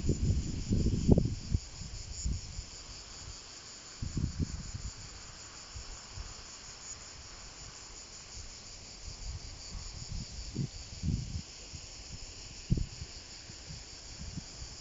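Insects chirping in a steady high-pitched drone, with irregular bursts of low rumble over it, the loudest in the first second or so.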